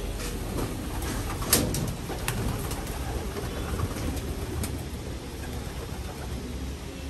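Racing pigeons cooing inside a loft, with a few sharp clicks, the loudest about a second and a half in.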